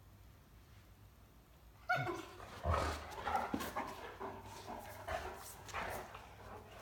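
Great Danes play-fighting: about two seconds in, a dog gives a sudden cry that falls in pitch. Short whimpers and barks follow, with knocks and scuffling as the dogs tussle.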